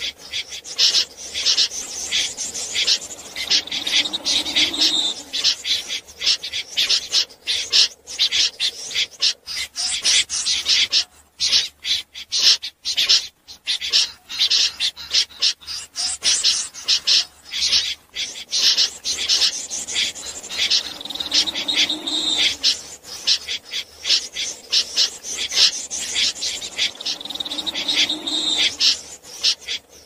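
Snipe calling: fast runs of harsh, rasping notes that go on for several seconds at a time, with a quieter lull around the middle.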